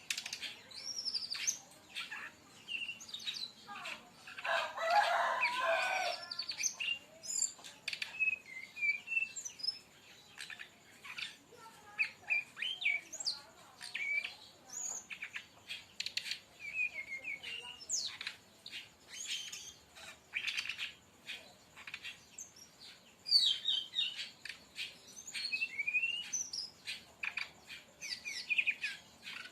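Brown-chested jungle flycatcher singing in rapid volleys: a fast string of short, varied whistles and chirps, with a denser, lower burst about four to six seconds in.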